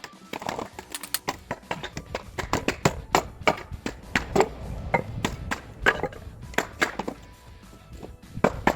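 Wooden pallet boards being struck and broken apart for firewood: a run of sharp wooden knocks and cracks, a few a second and irregular, easing off briefly near the end. Music plays under it.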